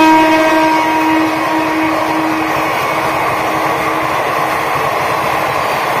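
Indian Railways WAP-7 electric locomotive horn holding one long steady note that fades away over the first few seconds, over the continuous rush and rumble of passenger coaches running past on the rails.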